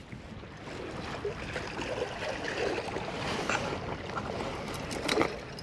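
Small waves lapping and trickling among the shoreline rocks, with a few light clicks near the end.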